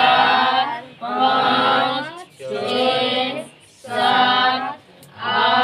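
Voices chanting slowly in a sing-song, one long drawn-out syllable about every second, as in counting aloud in chorus.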